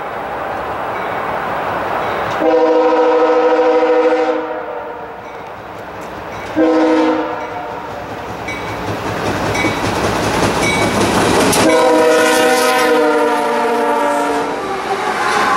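Canadian Pacific freight locomotive's multi-chime air horn sounding long, short, long, the end of a grade-crossing signal, as the train approaches and passes. Under it, the steady rumble and wheel clatter of freight cars rolling by.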